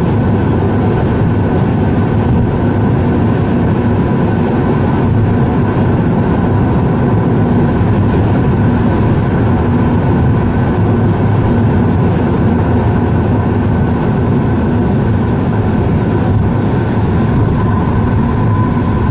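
Steady car cabin noise while cruising at highway speed: engine and tyre-on-road noise heard from inside the car, whose engine has freshly changed Total Quartz oil.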